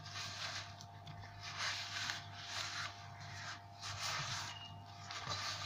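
Maida dough being kneaded by hand in a steel bowl: soft rhythmic rubbing and scraping strokes through the damp flour, about one and a half a second.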